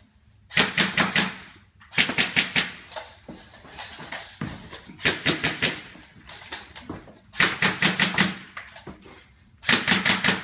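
Airsoft gun firing quick strings of shots, about five strings of four to six shots each, with short pauses between.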